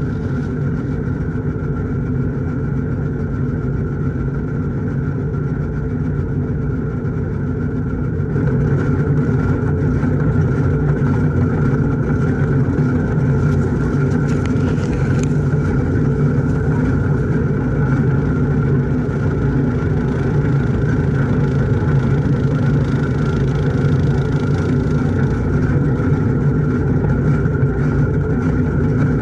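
Gehl corn chopper running steadily, driven by a 1941 Farmall H tractor's four-cylinder engine, a steady mechanical drone that gets louder about eight seconds in. Corn stalks are fed through it midway.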